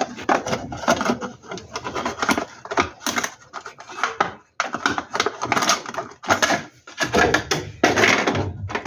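Irregular knocking, scraping and clattering of hard parts being handled.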